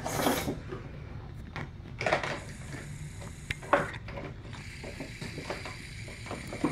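Clear plastic packaging of a toy tea set being handled: soft rustling and crinkling with a few brief sharp clicks, the loudest about two seconds in and just before four seconds.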